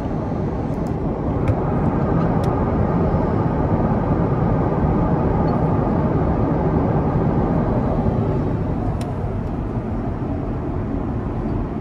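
Steady roar of an Airbus A350 in cruise heard from inside the cabin, the noise of its Rolls-Royce Trent XWB jet engines and rushing airflow. It swells a little about a second and a half in and eases off near the end.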